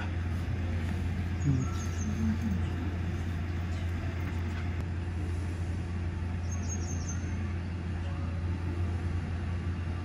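A steady low machinery hum, with faint voices briefly about a second and a half in.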